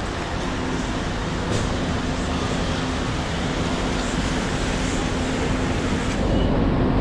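Steady hiss of rain falling on a city street, mixed with the low rumble of passing road traffic. About six seconds in the hiss dulls and the traffic rumble grows a little louder.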